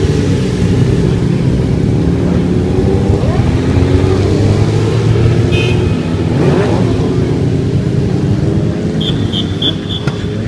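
Several motorcycles ride past with their engines running, and their revs rise and fall as they go through. Four short high beeps sound near the end.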